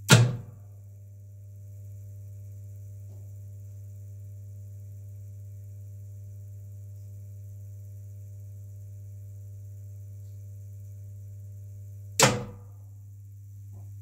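Hörmann SSG IV siren control unit switching: a relay clunks in, a faint steady higher tone joins the constant electrical hum for about twelve seconds, then the relay clunks out again. This is one twelve-second tone phase of the fire-alarm signal, with no siren heard.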